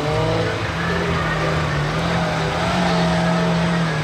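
Suzuki Jimny off-road rally car's engine running under throttle at steady revs as it drives down a dirt track, the pitch rising a little about three seconds in.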